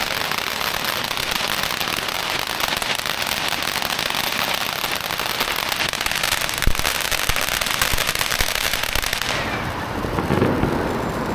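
Firecrackers going off in a dense, rapid, continuous crackle, with one louder bang about two-thirds of the way through, stopping abruptly about nine seconds in.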